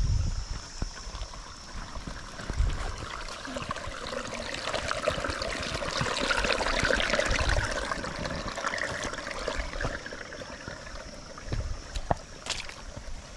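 Small monsoon-fed waterfall: rainwater trickling and splashing over flat stone slabs into a shallow stream, a steady sound that grows fuller in the middle. A few low bumps on the microphone.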